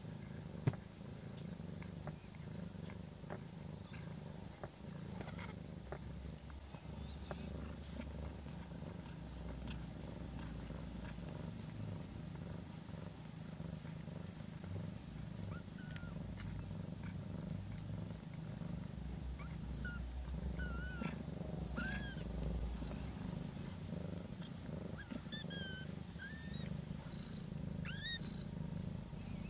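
Ginger mother cat purring steadily while her young kittens nurse. In the second half come a few faint short high squeaks.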